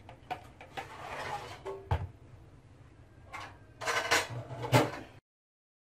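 A few light clicks and knocks with some rustling, the loudest knock about two seconds in and a louder cluster of handling noise near the end, then the sound cuts off suddenly.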